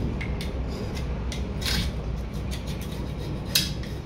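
A flat steel scraper blade scraping old gasket and rust off the flange of a rusty piston water pump's cylinder block, in short irregular strokes, the sharpest about three and a half seconds in. A steady low hum runs underneath.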